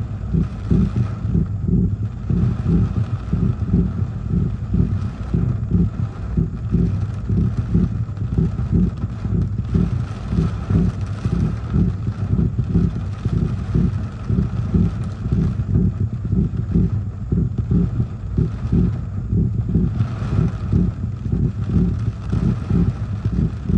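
Gusty tropical-storm wind and driving rain, with the wind rumbling and buffeting hard on the microphone.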